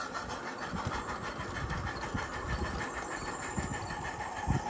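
G-scale model train running along garden railway track, its wheels making irregular low clicks and knocks over the rails against a steady hiss.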